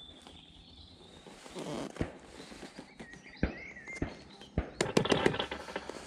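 Fishing tackle being handled: a series of separate sharp clicks and knocks, then a quick cluster of louder clicks about five seconds in.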